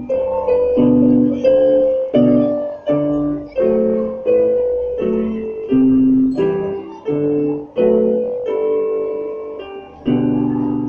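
Electronic keyboard played live with a piano-like voice: chords struck about twice a second beneath a held melody line.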